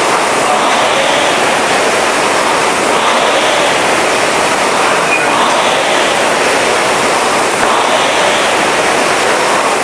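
Several Concept2 rowing machines running together: the air-braked flywheel fans make a steady loud whooshing rush that swells slightly with the strokes.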